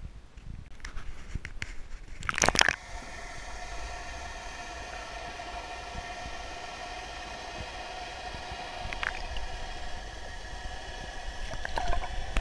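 Water splashing at a boat's side, then a loud splash a little over two seconds in as the camera plunges under the surface. After that, the sound is muffled underwater noise with several steady tones running through it.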